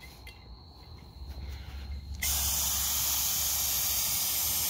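Gravity-feed paint spray gun being triggered about two seconds in, then a steady hiss of compressed air spraying lacquer thinner out through the nozzle to flush paint from the gun.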